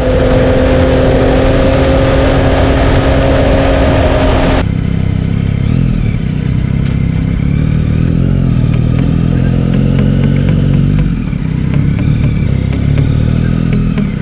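Yamaha Tracer 9's three-cylinder engine running at steady cruising speed under loud wind rush. About four and a half seconds in, this cuts to a lower, quieter engine note as the bike rolls slowly at low revs, in neutral by the end.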